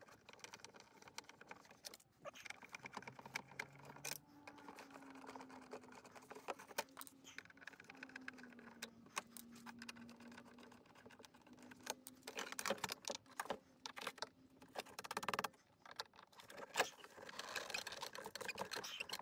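Faint, irregular small clicks and metallic rattles of hand work on a Lotus Esprit headlight pod: a Phillips screwdriver and loose fasteners on the rusted pod fittings. A faint low steady drone sits under the middle part.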